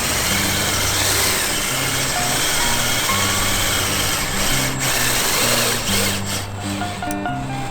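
Background music with a bass line changing notes every half second or so, over a steady rushing noise.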